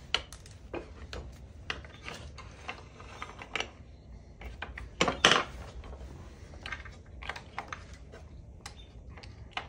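Plastic Duplo bricks clicking and clattering as they are picked up, fitted together and set down on a wooden table: irregular light clicks, with a louder clack about five seconds in.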